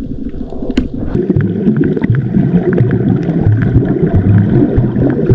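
Underwater sound through a submerged camera: a loud, muffled, gurgling rumble of moving water and bubbles, with scattered small clicks.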